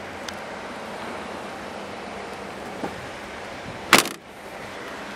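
A single loud slam about four seconds in as the 2013 Kia Sorento's tailgate is shut, preceded by a small click, over steady outdoor background noise.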